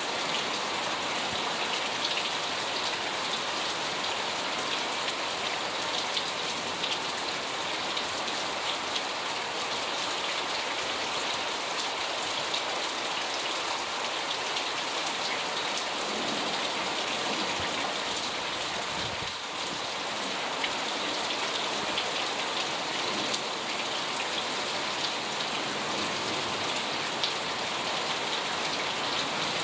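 Heavy rain falling steadily in a summer rainstorm, with many sharp ticks of individual drops striking close by.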